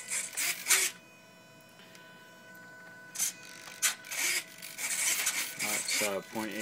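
Small RC servos in a glider's wing and pod driving the control surfaces, whirring in short rasping bursts as they move. Under them runs a steady buzz from servos held stalled against fully deployed flaps.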